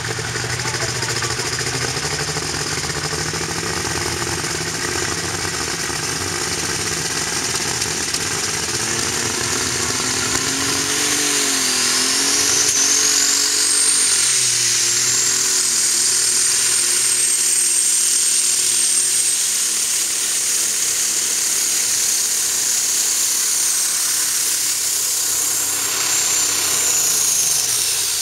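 Light super stock pulling tractor's turbocharged engine running hard through a pull. A high turbo whine climbs about ten seconds in, holds steady, and falls away near the end as the engine comes off power.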